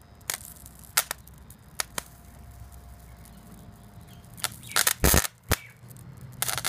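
Sharp, irregular cracks and pops of very high current arcing where a steel strip touches the output bar of a homemade high-current transformer (an arc-welder transformer rewound with railway cable), over a low steady hum. A few single cracks come in the first two seconds, then a louder cluster of pops about five seconds in and again near the end.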